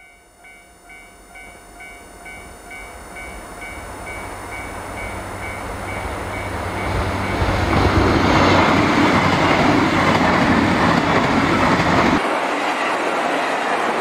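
JR Hokkaido KiHa 261 series diesel limited express approaching and passing, its diesel engines and wheels on the rails growing steadily louder to a loud rush with clatter. A level-crossing warning bell rings faintly in the first few seconds. About twelve seconds in the deep rumble drops away abruptly, leaving the rail clatter and rush.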